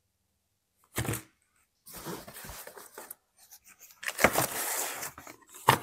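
Plastic bags crinkling and a cardboard box being handled, in several bouts of rustling and scraping after a quiet first second, with a few sharp clicks.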